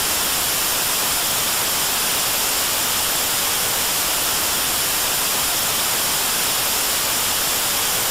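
Steady static hiss, even white noise with no pitch or rhythm and most of its energy in the high end, used as the sound of a glitching, corrupted video.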